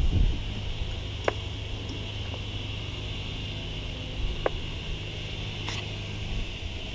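Exmark Vantage stand-on mower's engine running at a steady pitch, with a steady high hiss above it. Two short, sharp high blips sound about a second in and again about four and a half seconds in.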